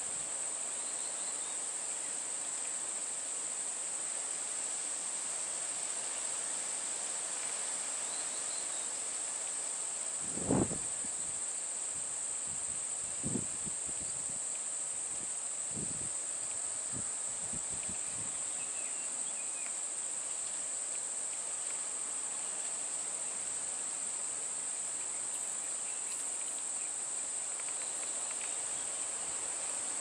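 Insects droning in one steady, high, continuous chorus, with a few short knocks near the middle.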